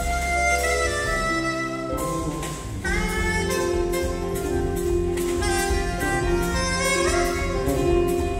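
Live jazz band playing: a saxophone leads with long held melody notes over electric bass, electric guitar, keyboard and drum kit. The melody drops out briefly about two seconds in, then comes back.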